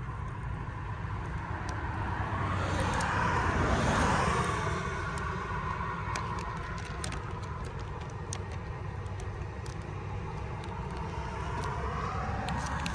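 A car passing by on the road, swelling to its loudest about four seconds in and then fading, over a steady low traffic rumble, with a few faint sharp clicks scattered through.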